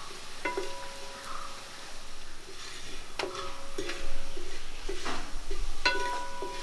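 A metal utensil clinking against a metal cooking vessel: four sharp clinks, most of them ringing on for about a second, with lighter tapping between.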